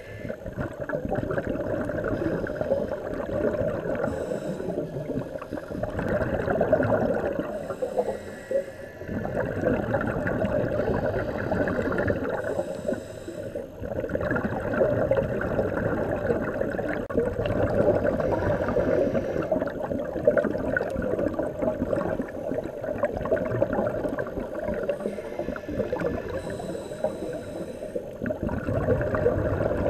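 Scuba regulator bubbles heard underwater: long gurgling rushes of exhaled air, broken a few times by brief quieter gaps.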